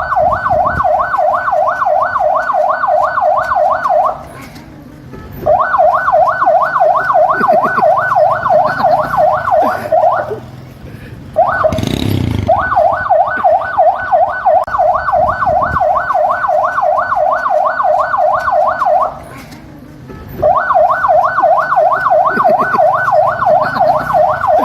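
Police siren in a fast yelp, its pitch sweeping up and down about four or five times a second. It sounds in runs of four to six seconds with short breaks between them.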